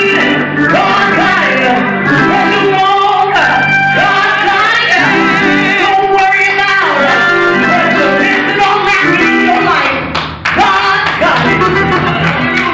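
Church music: voices singing over instrumental accompaniment, with a brief drop in loudness about ten seconds in.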